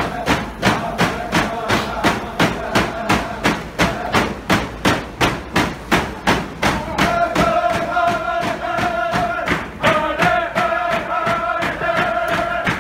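Drum song: a drum beaten steadily, about two and a half beats a second, with voices chanting over it that grow stronger about seven seconds in.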